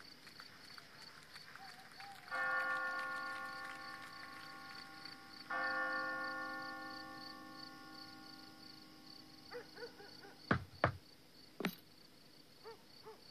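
A church bell tolls twice, about three seconds apart, each stroke ringing on and slowly fading. A few short, sharp knocks follow near the end.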